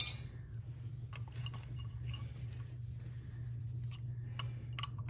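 A few light metallic clicks and taps as gloved hands work at brake pads stuck fast in a removed front brake caliper, over a steady low hum.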